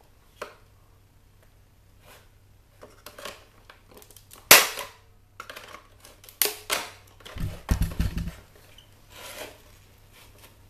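Hard plastic casing of a CD/tape player boombox being handled and pried at by gloved hands: scattered plastic clicks and knocks, the loudest a sharp click about four and a half seconds in, then a run of knocks with low thuds a little later.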